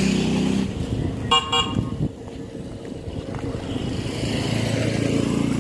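A motorcycle-engined tricycle passing, its engine fading within the first second. Then two short horn toots about a second and a half in. Another vehicle's engine builds up again near the end.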